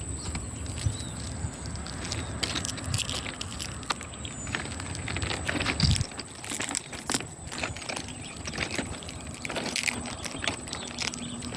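Irregular crackling and crunching snaps of dry plant matter being disturbed, over a steady high-pitched tone; a low rumble underneath stops about six seconds in.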